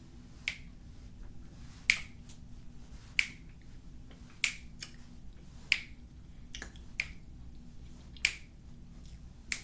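Oven-baked cornstarch being chewed: a sharp, crisp crunch at an even pace, roughly one every second and a quarter, about eight in all.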